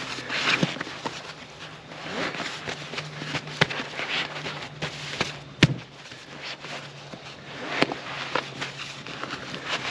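Nylon compression sack being cinched down: straps pulled through their buckles and fabric rustling and crinkling, with three sharp snaps about two seconds apart.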